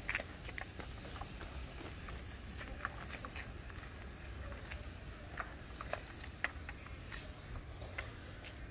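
Hand-pump pressure sprayer misting water wax onto a car, a soft spray hiss with scattered light clicks and taps at irregular intervals.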